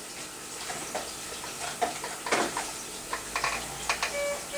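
Rustling and scattered small clicks of handling, with a run of three short electronic beeps near the end.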